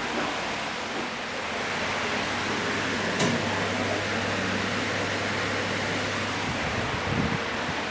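Steady indoor background noise: an even hiss with a low hum that stops shortly before the end, one sharp click about three seconds in and a short low thump near the end.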